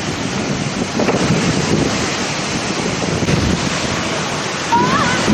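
Storm wind buffeting the microphone: a steady rushing noise with rumbling gusts. A short wavering, gliding tone comes in near the end.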